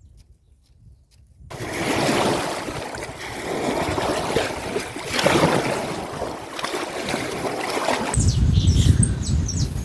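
Loud, uneven rushing and splashing of water for about six seconds, starting suddenly and cutting off abruptly. It gives way to a low rumble with birds chirping, a few quick chirps a second.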